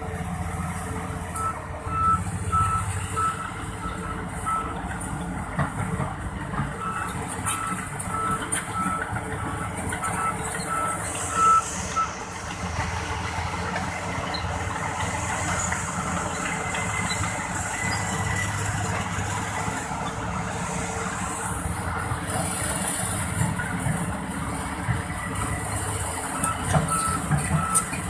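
Reversing alarm beeping at one steady high pitch, about two to three beeps a second, over the low running of heavy diesel machinery. The beeping stops about twelve seconds in and starts again near the end, and two hisses come about eleven and twenty-one seconds in.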